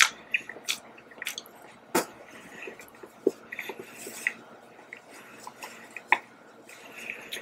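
Close-miked chewing of a soft donut: wet, irregular mouth clicks and lip smacks, with a few sharper smacks, the loudest right at the start and about two seconds in.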